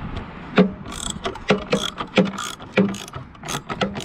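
Socket ratchet clicking in short, uneven strokes, about two or three a second, as it backs out a loosened bolt.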